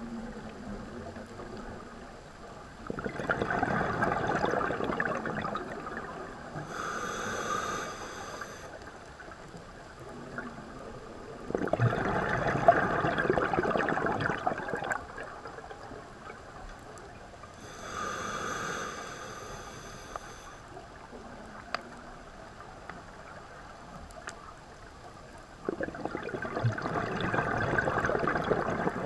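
Scuba diver's own breathing through a regulator, heard through an underwater camera housing: three long bubbling exhalations, about 3 s in, in the middle and near the end, alternate with two shorter hissing inhalations in a slow, even rhythm.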